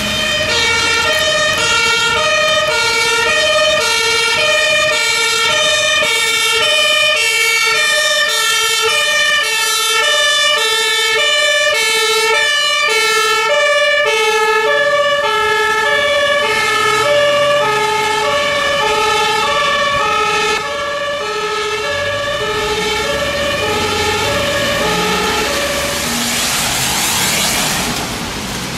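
Fire engine's two-tone German siren (Martinshorn) sounding, alternating steadily between a high and a low note over the hiss of heavy rain. The siren fades out near the end, leaving the rain.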